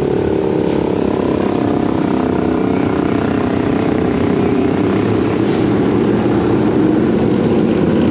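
An engine running steadily and loud, getting a little louder near the end.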